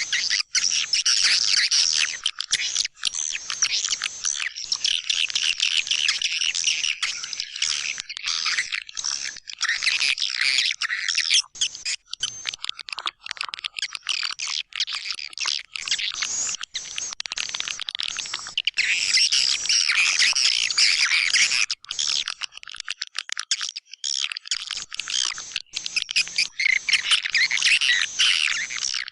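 Lure recording of white-nest swiftlet calls: dense, continuous high-pitched chirping and twittering, with a brief lull about two-thirds through.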